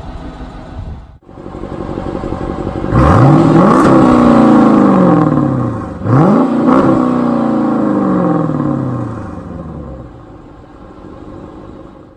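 Dodge Challenger R/T's Hemi V8 idling, then revved twice, each rev climbing quickly and sinking slowly back to idle.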